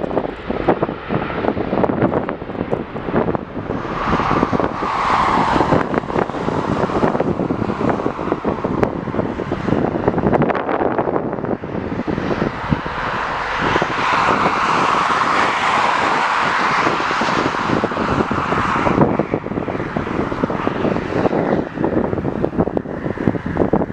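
Jet airliner engines rushing, swelling twice, longest and loudest in the middle of the stretch, over gusting wind buffeting the microphone.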